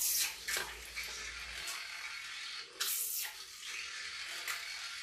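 Water splashing and churning in a filled bathroom sink, stirred by a small 3D-printed RC torpedo's micro-motor propeller. It comes in uneven surges, the loudest near the start and about three seconds in.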